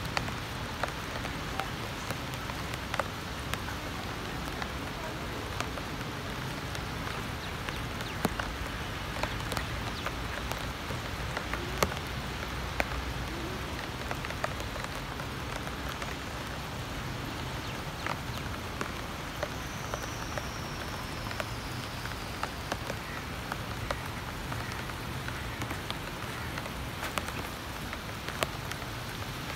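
Heavy rain falling steadily, with many sharp ticks of drops striking close by.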